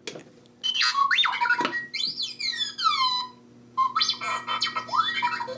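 R2-D2 beeps and whistles played from the speaker of an R2-D2 talking cookie jar, set off by flipping open its dome lid: a run of quickly rising and falling electronic chirps and whistles, a short pause, then a second run.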